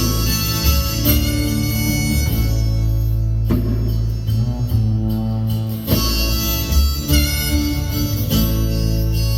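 Live band playing an instrumental break between verses: a steady bass and guitar under a held lead melody, with no singing.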